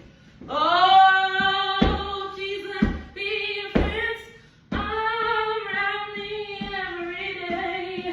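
A woman's voice singing slow, long held notes, with no clear words. Four sharp knocks fall about a second apart in the first half.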